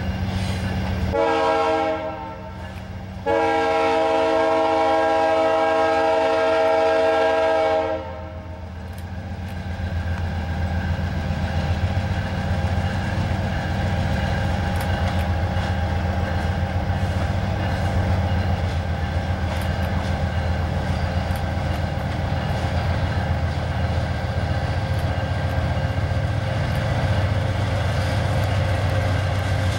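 Freight train's diesel locomotive sounding its multi-tone air horn twice: a short blast about a second in, then a long one of about five seconds. After the horn the train runs on with a steady low rumble and faint clicks of wheels on rails.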